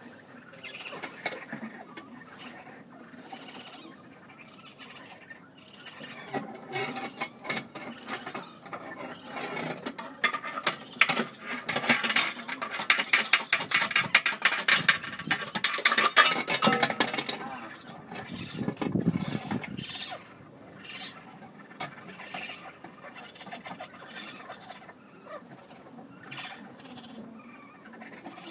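Rapid scratching and scraping in a chimney flue as a raccoon struggles against its captors, loudest for several seconds around the middle, with a short low sound just after.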